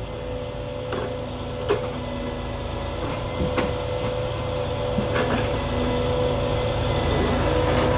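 Log truck's hydraulic grapple loader at work: the truck engine running with a steady hydraulic whine as the grapple swings and opens, slowly growing louder. Three sharp knocks come a couple of seconds apart.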